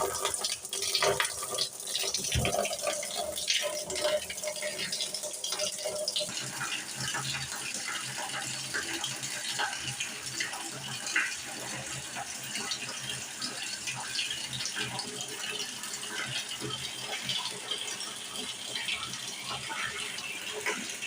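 Running water, a steady splashing hiss with many small irregular clicks and knocks.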